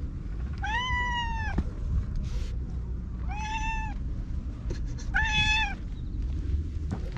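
Ginger tabby cat meowing three times: a longer meow about a second in, then two shorter ones a couple of seconds apart.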